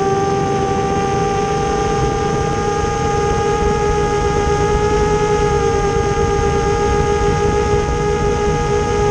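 A 7-inch FPV quadcopter's motors and propellers whining at a steady pitch in level cruise, with wind rushing over the onboard camera's microphone.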